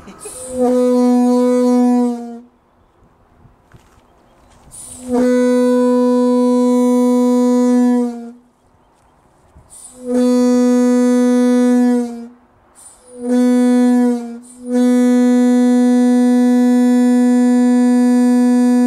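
Air horn fed by small portable air compressors through a hose and running on low air pressure, blown five times from a hand valve. Each blast is one steady, unwavering note: the second blast and the last are held longest, and the fourth is short.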